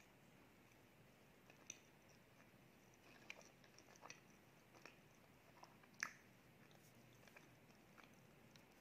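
A person chewing food close to the microphone: faint, scattered small crunches and mouth clicks, the sharpest about six seconds in.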